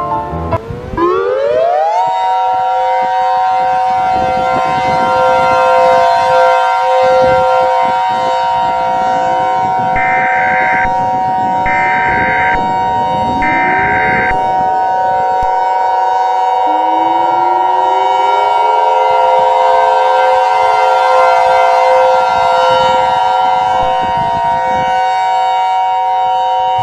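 Civil defense siren winding up over about two seconds, then holding a steady chord of several tones. About ten seconds in, three short higher beeps sound over it.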